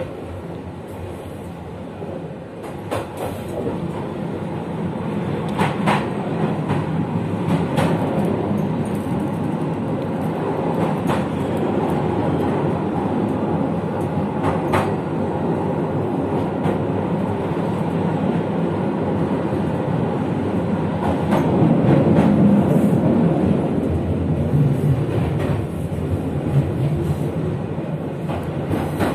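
Passenger train coaches running along the track: a steady rumble that builds up and eases off, with scattered sharp clacks of the wheels over rail joints and points.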